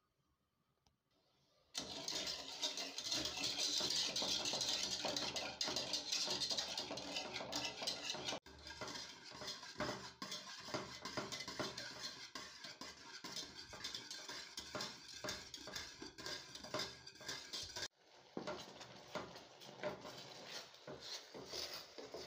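A metal whisk beating milk in an aluminium pot, scraping and clinking quickly against the sides and bottom. It starts about two seconds in and breaks off sharply twice. After the second break it is quieter: a wooden spoon stirring the thickening condensed-milk mixture against the pot.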